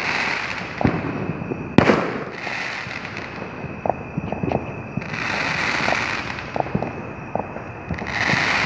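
Fireworks going off: a sharp bang at the start and a louder boom about two seconds in. Scattered smaller pops and several bouts of crackling hiss follow.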